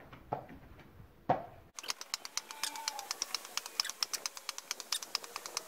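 Tennis rackets volleying a ball back and forth, sped up. After a few separate hits, an abrupt run of quick, evenly spaced knocks starts at about seven a second.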